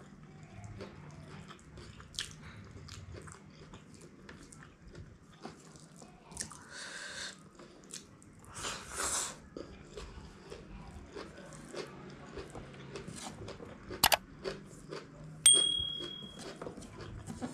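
Close-miked eating sounds of a person eating chow mein by hand: wet chewing and lip smacks with small clicks throughout, and two longer slurps as noodles are sucked in around the middle. Near the end a sharp click is followed by a short bright electronic ding.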